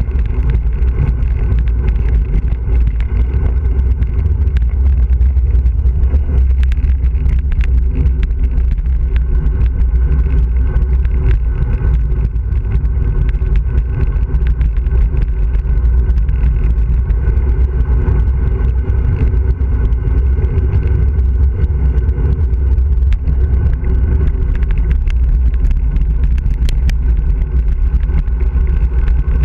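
Wind buffeting the microphone of a bicycle-mounted action camera on a fast road-bike descent: a loud, steady rumble, with scattered small clicks and rattles from the road surface.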